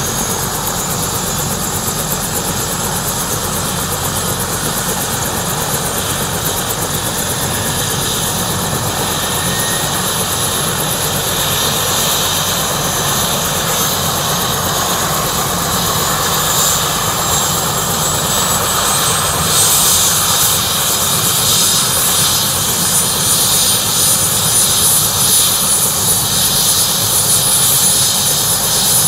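Bell 222/230 twin-turbine helicopter running up on the ground: the turbines' high whine climbs steadily in pitch for about twenty seconds and then levels off, while the main rotor's beat grows louder as it comes up to speed during startup before liftoff.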